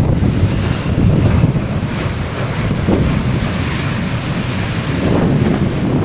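Strong gusting wind buffeting the microphone in typhoon weather, with the jet engines of a Boeing 737-800 landing on a wet runway faintly whining underneath, rising and falling midway through.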